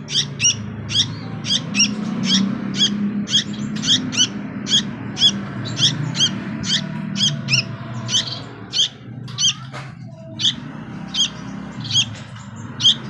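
Young sooty-headed bulbul giving short, sharp, high-pitched chirping calls over and over, about two a second, with a steady low hum underneath.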